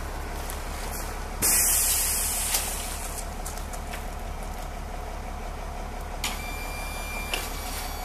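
A Braun wheelchair lift on a school bus being run from its hand control, over a steady low hum. About a second and a half in there is a sudden loud hiss that fades over a second or so. Later come sharp clicks, with a steady whine between the last two clicks near the end.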